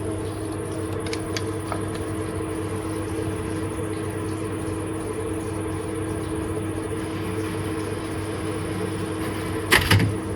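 A steady mechanical hum with a few constant low tones and a high hiss, and a brief rustle or knock near the end.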